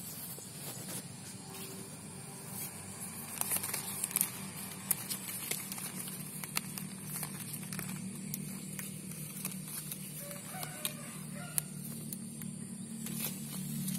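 Leaves rustling and small sharp snaps as a hand pinches flower buds off a water apple tree to thin them, over a steady low hum.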